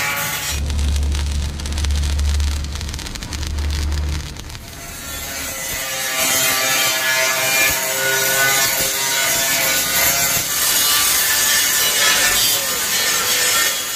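Angle grinder grinding the welded sheet-steel body panels of a tipper truck body: a steady rasping hiss with a wavering whine that settles in about five seconds in. Before that, a low hum with fast rasping.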